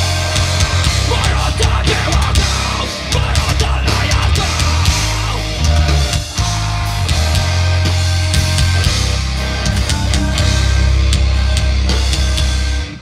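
Live heavy rock band playing loud through a concert PA: distorted electric guitars over a heavy bass line and pounding drum kit.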